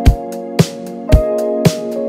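Background music: a pop track with sustained keyboard chords over a steady drum beat, about two beats a second.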